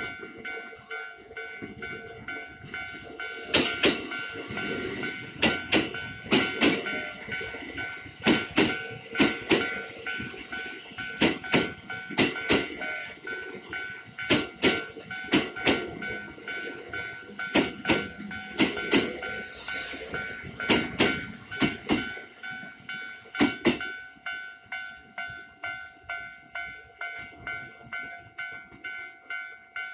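Japanese level-crossing warning bell ringing steadily, about two strikes a second. A Kintetsu electric train passes over the crossing from about 3 seconds in until about 24 seconds in, its wheels clattering loudly over the rail joints.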